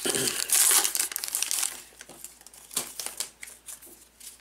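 A 2020 Topps Archives baseball card pack's foil wrapper being torn open and crinkled as the cards are pulled out, loud for about the first two seconds, then fainter rustling with a few light clicks.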